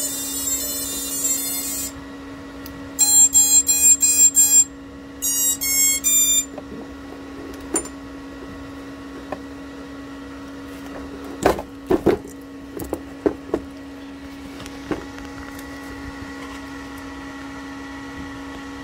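A 5-inch FPV quadcopter's ESCs playing the end of a custom start-up tune through the brushless motors, which stops about two seconds in. Two runs of quick electronic beeps follow, with a steady hum underneath, and later a few sharp clicks.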